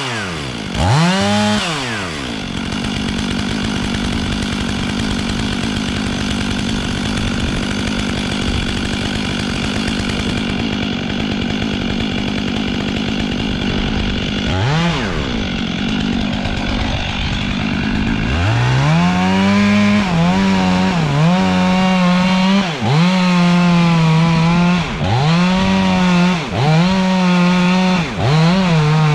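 Two-stroke chainsaw revved twice near the start, then running steadily at a lower speed. It blips once halfway, then from about two-thirds in runs at full throttle with its pitch dipping briefly every second or two as it is loaded in the cut.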